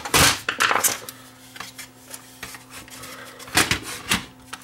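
Hands handling the opened Panasonic DVD-S35 player: knocks and clatter of its sheet-metal chassis and plastic disc mechanism, a few sharp knocks in the first second and another cluster about three and a half seconds in, with quieter rattling between.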